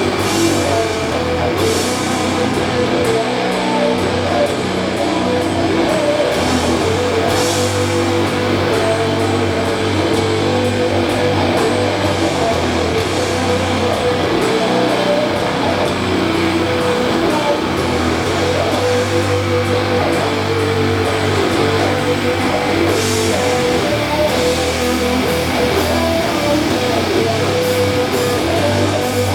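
Live doom metal band playing loud, with distorted electric guitars and bass on long held notes, over drums with a few cymbal crashes.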